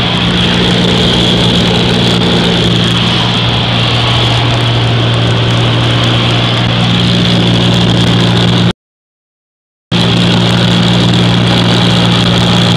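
Light aircraft's piston engine and propeller droning steadily in flight, heard from inside the cabin, with a constant low hum and wind noise over it. The sound cuts out completely for about a second shortly after the middle, then comes back unchanged.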